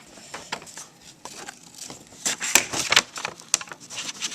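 Pen scribbling on paper: irregular scratchy strokes with paper rustling and a few sharp clicks, busiest about two to three seconds in.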